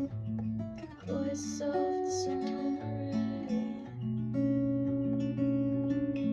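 A guitar, likely acoustic, playing a picked passage of held, ringing notes that overlap one another, without singing.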